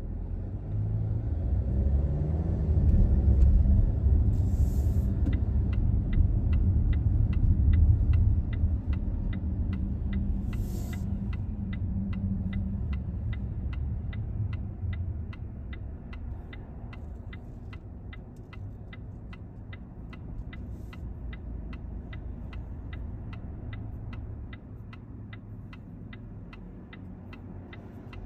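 Car road and engine rumble, loud for the first half, then dying down as the car slows. A turn-signal indicator clicks steadily about twice a second from a few seconds in, and there are two brief hisses in the first half.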